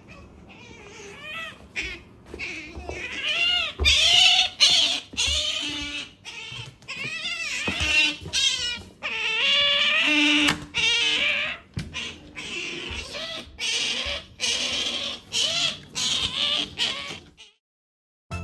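Asian small-clawed otter calling over and over, a run of high, wavering squeaks and whines one after another, stopping suddenly about a second before the end.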